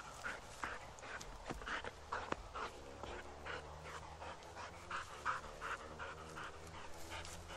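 Dog panting hard and rhythmically, about two to three breaths a second.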